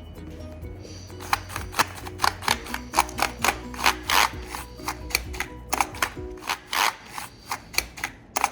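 Computer keyboard being cleaned: a quick, irregular run of sharp plastic clicks and short scrapes over the keys, starting about a second in, with background music underneath.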